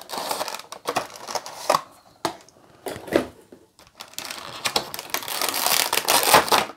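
Thin clear plastic bag crinkling and rustling as it is pulled off a vinyl Funko Pop figure, after some handling of the cardboard box and its plastic insert. The crinkling turns dense and loud in the last two seconds.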